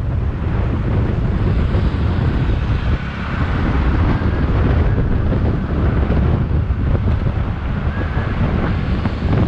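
Wind buffeting the microphone of a moving motorcycle, a steady low rumble with the engine running underneath.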